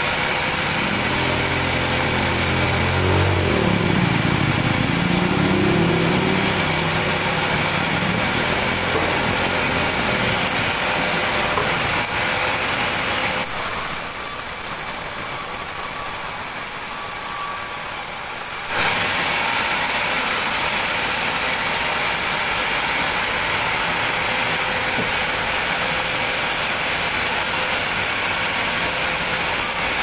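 Sawmill machinery running steadily, with a high whine over the engine noise. A low engine note falls and rises in the first few seconds. About halfway through, the noise drops quieter and the whine stops for around five seconds before both return.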